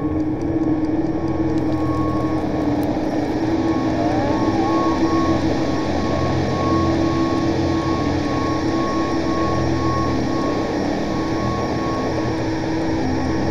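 Dark ambient drone from a film soundtrack: a steady, dense low rumble with a few held tones, close to the sound inside a moving train. A fast ticking layered over it stops about three seconds in.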